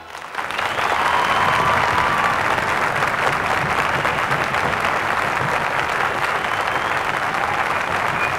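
Studio audience applauding. The clapping builds up within the first second, then holds steady.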